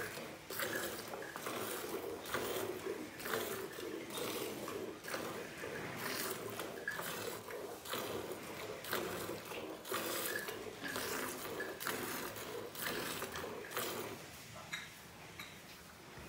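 Hand-milking a cow: rhythmic squirts of milk driven into a steel bucket already part full of milk, about two strokes a second, dying down near the end.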